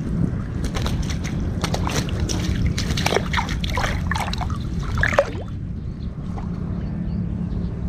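Water splashing and dripping close by as a person wades in swamp water, handling a caught tilapia and a mesh landing net, with many small splashes and drips over the first five seconds. After that only a steady low sloshing of water around the wader is left.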